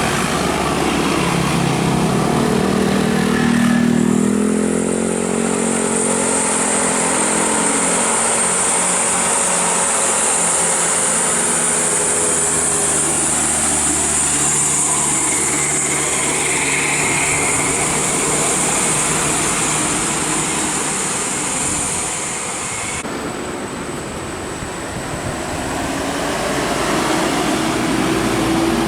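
Road traffic with tour-bus engines running, a pitched tone low down in the first few seconds, and a steady high hiss from about four seconds in that cuts off about twenty-three seconds in.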